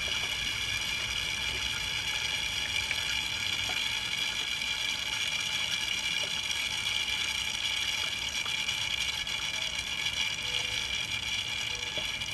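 PELA 2000 vacuum oil extractor sucking air and the last of the oil up its tube from a lawn mower engine, a steady hiss: the sign that the sump is nearly drained.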